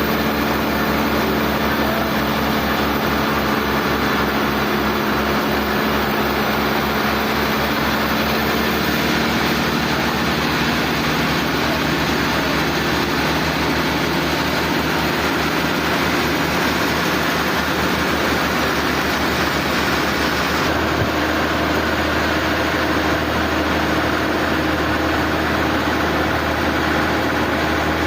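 Sawmill machinery running steadily, an engine-like hum with a low pulsing beat. About twenty-one seconds in, the sound shifts abruptly and the pulsing gives way to a smoother low hum.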